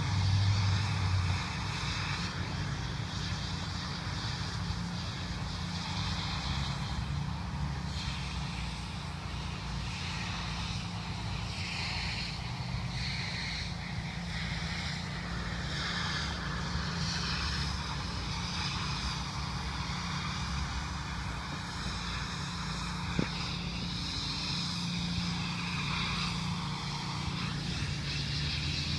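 A steady engine drone with a faint high whine over it and a hiss that swells and fades at intervals; a single sharp click about 23 seconds in.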